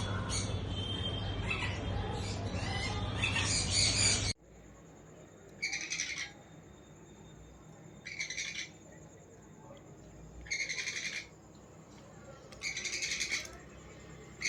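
Many caged birds chattering and squawking together over a low hum. After an abrupt cut, a single parrot gives a harsh, rasping call over and over, one short call every two to two and a half seconds.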